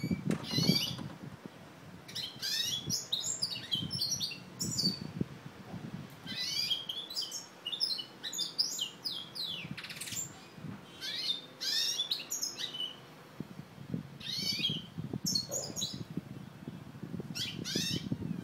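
A caged mulet (a hybrid finch) singing: short bursts of quick, sweeping twittering notes, phrase after phrase with brief pauses between.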